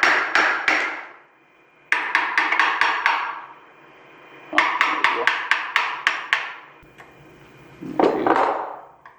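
A hammer tapping hard and fast on the shackle of a padlock frozen in ice, trying to drive the ice-packed shackle down. The strikes come in three quick runs of several ringing taps with short pauses between, and a brief rasping sound follows near the end.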